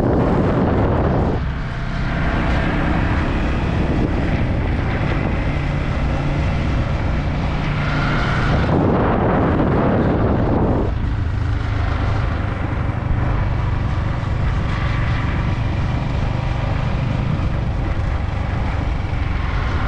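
Yamaha MT-15's single-cylinder engine running steadily while riding, under wind rushing over the microphone, which swells at the start and again about halfway through.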